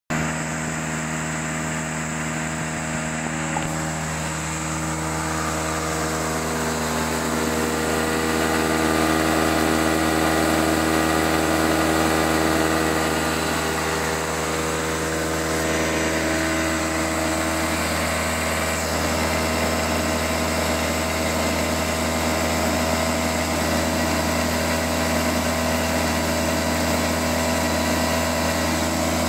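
Small two-stroke Robin EC10 engine on a walk-behind lawnmower running steadily at idle, a little louder for a few seconds in the middle.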